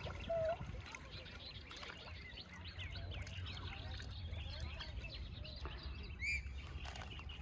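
Birds calling at a lake: many short chirps throughout, one louder call about half a second in and a rising whistle near the end, over a steady low rumble.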